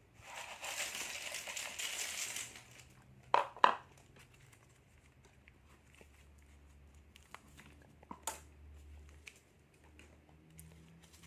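Plastic snack packets crinkling as they are handled and torn open, then two sharp clicks close together, the loudest sounds, and another a few seconds later.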